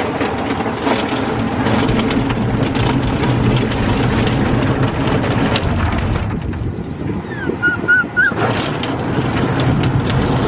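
Automatic car wash running over the car, heard from inside the cabin: a loud, steady rush of water spray and machinery. A quick run of four small, high squeaks comes about eight seconds in.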